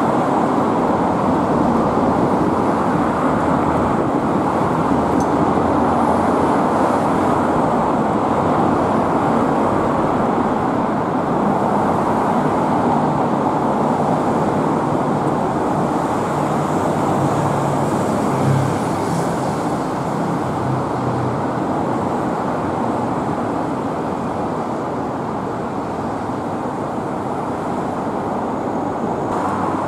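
Steady road traffic noise of cars passing along a multi-lane city street, a continuous rush of tyres and engines that eases slightly in the second half.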